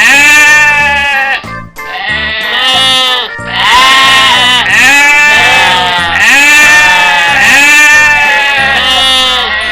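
Sheep bleating: about seven long, wavering bleats in quick succession, over background music with a steady beat.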